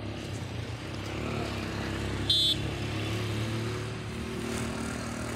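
Engine of a nearby motor vehicle running, its hum rising a little through the middle, with a single short high-pitched horn beep about two seconds in.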